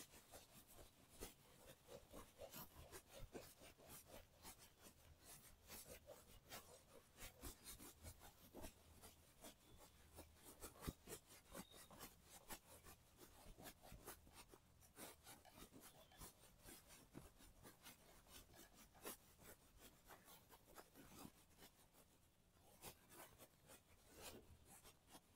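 Faint scrubbing of a handheld eraser wiping marker ink off a whiteboard, in many quick back-and-forth strokes.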